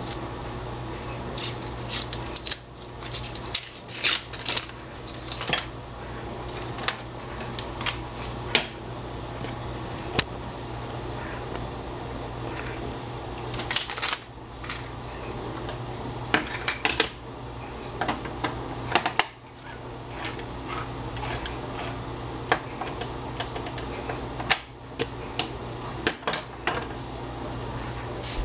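Cooking utensil clinking and scraping against a pan while the dish is stirred, in irregular knocks, some in quick clusters, over a steady low hum.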